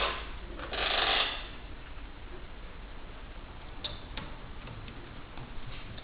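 Hands working on a laptop's new replacement screen: a sharp plastic click at the start, a brief rustling scrape about a second in, then scattered light clicks as parts and cables are handled and fitted into the lid.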